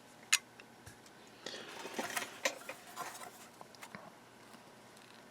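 Small objects being handled on a workbench: one sharp click, then about two seconds of rustling and light clattering.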